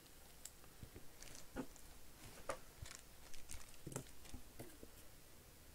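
Faint, irregular small clicks and crinkles of trading cards and plastic card sleeves and top loaders being handled.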